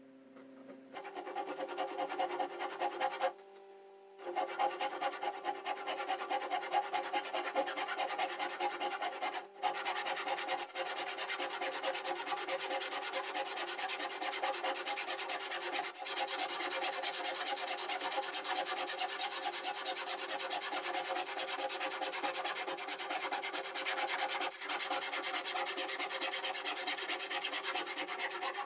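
Handsaw cutting through a thick block of layered plywood with continuous back-and-forth rasping strokes, stopping briefly about three and a half seconds in before sawing on.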